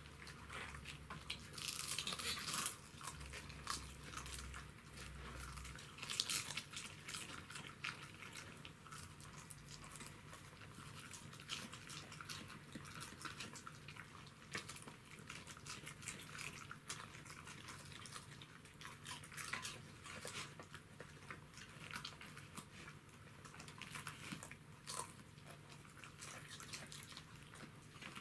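Pembroke Welsh corgis chewing raw cabbage leaves: an irregular run of crisp crunches and bites, with a few louder crunches now and then.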